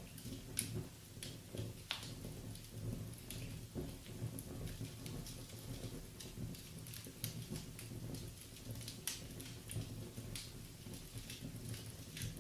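Wood fire crackling in a fireplace: irregular pops and snaps over a low, steady background.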